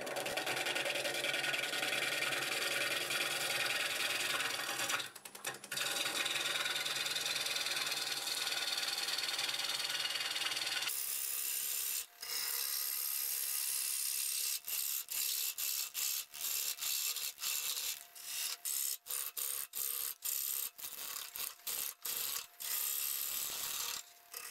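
A bowl gouge cutting a wet green cherry bowl blank spinning on a wood lathe: a steady cutting noise for the first half, then, from about halfway, a run of short cuts broken by many brief gaps.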